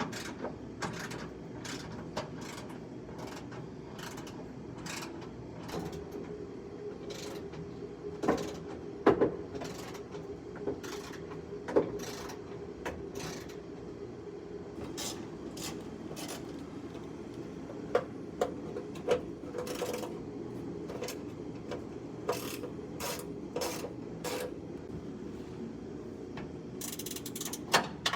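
Hand tools clicking and knocking at irregular intervals while bolts are undone on a car's dashboard, over a steady low hum.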